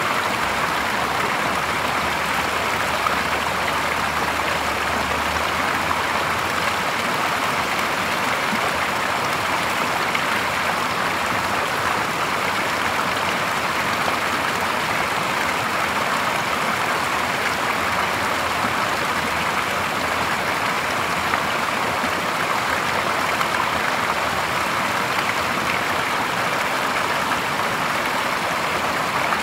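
Clear spring-fed stream water splashing steadily where a small cascade spills over a low stone ledge into a shallow pool, an even, unbroken rush of running water.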